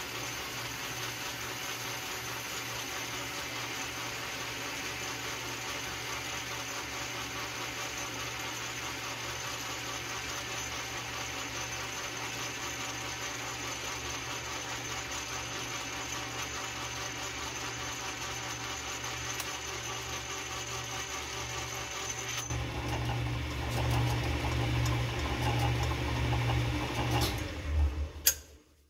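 Metal lathe running with a noisy gear set while a cutting tool faces the end of an aluminum round bar, with a thin high tone over the machine noise. A little over 22 seconds in the high tone stops and the running gets louder and rougher. Shortly before the end the sound cuts off as the lathe is switched off.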